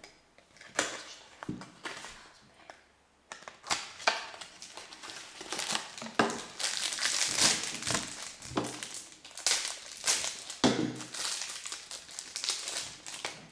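Clear plastic shrink-wrap being peeled and crumpled off a small card box, a crinkling crackle in repeated bursts, preceded by a few light taps in the first seconds.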